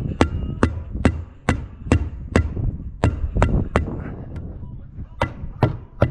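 A hammer tacker stapling synthetic roof underlayment down onto OSB roof sheathing: about a dozen sharp blows, roughly two a second, with a pause of a second or so midway.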